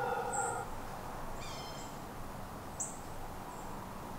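Woodland ambience: a faint steady hiss with a few short, very high bird chirps and a brief, higher bird call about one and a half seconds in. A lower, drawn-out call ends about half a second in.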